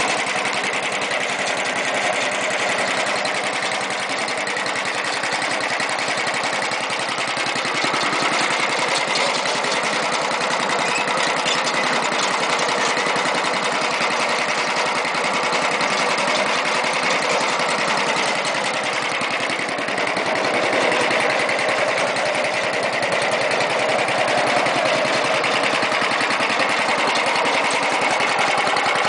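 Gilson 8 HP gear-drive snowblower's single-cylinder engine running steadily, a fast even rattle of firing strokes.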